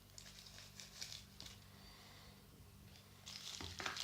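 Foil wrapper of a chocolate surprise egg being torn open and crinkled in the hands, in short crackly bursts that grow louder about three seconds in.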